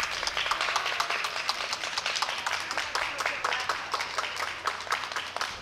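Audience applauding, with many irregular hand claps that keep up steadily and ease off slightly toward the end.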